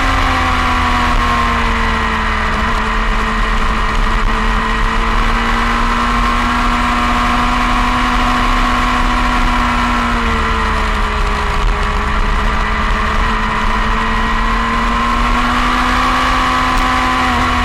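Onboard sound of a motorcycle engine at speed. Its pitch holds fairly steady, dips about ten seconds in, then climbs again, under heavy wind rumble on the microphone.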